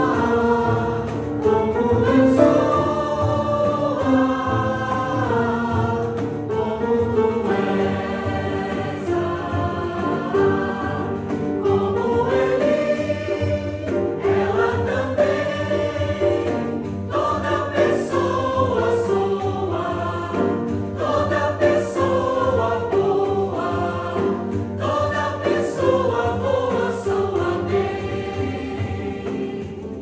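Mixed-voice choir singing in parts, with grand piano accompaniment.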